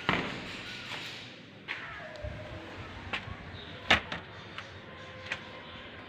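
uPVC sliding door being worked by its handle and slid open: a sharp knock at the start, then a few scattered clicks and knocks, the loudest about four seconds in.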